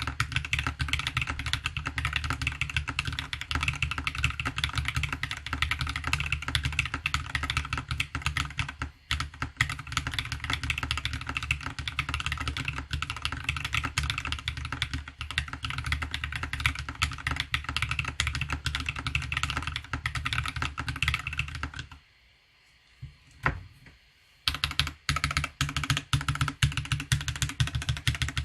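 Fast, continuous typing on a CSTC40 40% mechanical keyboard with POM keycaps, lubed BSUN Akashi switches and a polycarbonate plate. The typing stops for about two seconds roughly three quarters of the way through, with a single key tap in the pause, then resumes.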